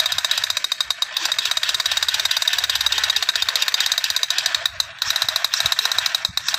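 Plastic toy pistol firing: a rapid, steady rattle of clicks with two brief breaks where the trigger is let go.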